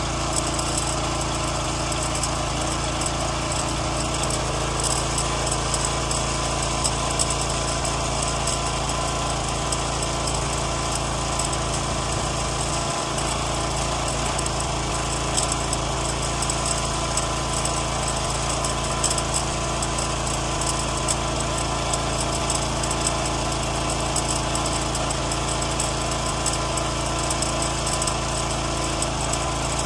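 Pressure washer running steadily under load, its wand spraying a high-pressure jet of water onto vinyl siding with a constant hiss over the machine's hum.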